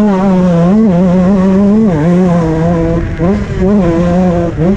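2007 Honda CR125 single-cylinder two-stroke motocross engine running at high revs under load, its pitch held mostly steady. Brief throttle chops drop the pitch and it climbs back quickly, once about two seconds in and again just before the end.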